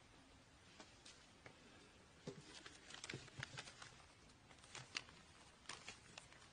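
Near silence: faint room tone with scattered small clicks and rustles, busier from about two seconds in.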